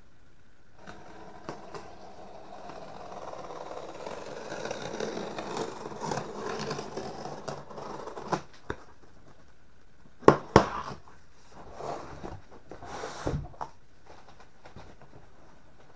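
Cardboard shipping box being handled on a wooden table: several seconds of scraping and rustling as gloved hands rub and slide it, then two sharp knocks in quick succession about ten seconds in, followed by a few lighter knocks and a dull thump as the box is shifted and turned.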